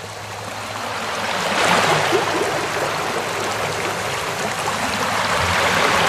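Sea surf on a beach: a steady rush of breaking waves washing up the sand, growing louder over the first couple of seconds and swelling as a wave breaks about a second and a half in and again near the end.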